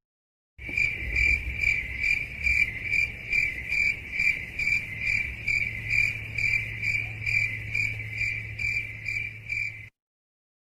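Crickets-chirping sound effect, the stock 'awkward silence' crickets: evenly repeating high chirps, about two and a half a second, over a low steady hum. It starts just after the beginning and cuts off suddenly near the end.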